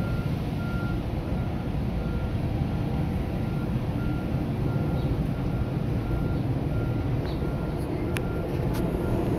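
Vehicle reversing alarm sounding a steady run of short high beeps over a continuous low engine rumble.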